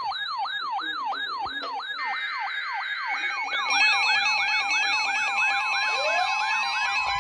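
Several electronic alert tones sounding together and piling up. A fast falling yelp repeats about three and a half times a second, steady tones and more warbling tones join it one after another, and a tone sweeps upward near the end. These are alert receivers going off for a new weather warning.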